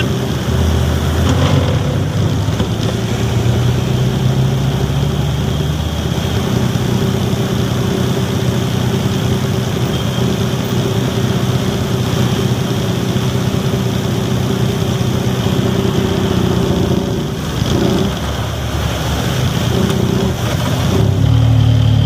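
Truck's diesel engine running steadily at low speed, heard from inside the cab, easing off briefly late on and picking up again near the end.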